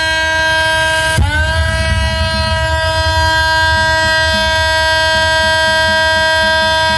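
A DJ sound system plays a long, held, buzzy horn-like note over heavy bass. The note breaks off about a second in and comes back with a quick upward slide, then holds steady.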